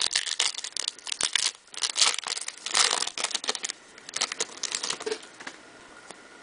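Foil wrapper of a baseball card pack crinkling and tearing as it is ripped open by hand, a dense run of crackles that stops about five and a half seconds in.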